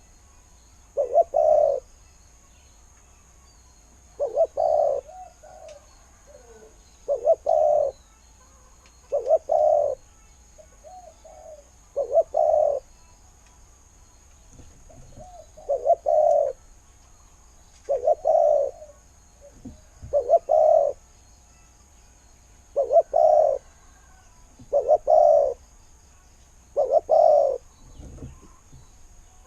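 Spotted dove cooing: a short coo phrase repeated about every two to three seconds.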